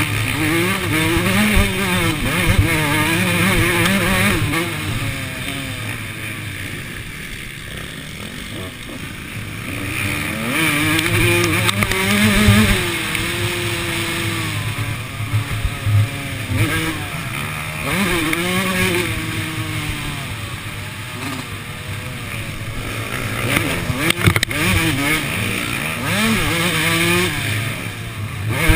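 Suzuki RM two-stroke motocross bike's engine revving up and down as it is ridden hard, the pitch rising and falling with the throttle through the gears. It goes quieter for a few seconds about a quarter of the way in, then picks up again.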